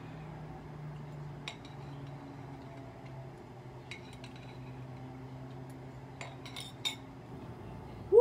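A metal utensil clinking against a ceramic bowl a handful of times: once about a second and a half in, twice around the middle, and a quick cluster near the end, over a steady low hum.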